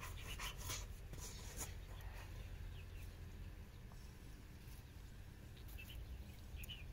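Faint rustling with a quick run of light ticks in the first second and a half, then only a low steady hum with a few small ticks near the end.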